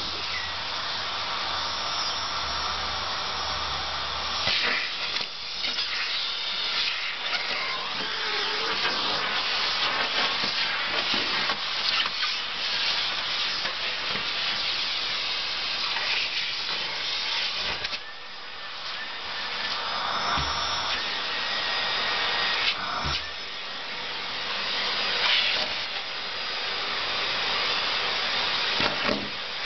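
Nilfisk canister vacuum cleaner running, sucking scraps of paper off a carpet through its bare wand. The steady rush of air swells and dips as the wand moves, with a few sharp clacks in the second half.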